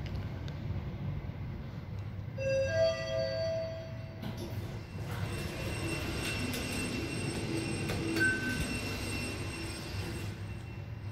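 Mitsubishi passenger elevator stopping at a floor. A two-note rising arrival chime sounds about two seconds in. The doors then slide open and, some seconds later, begin closing, with a steady high whine from the door operator and a short high beep near the end. A low steady hum from the car runs underneath.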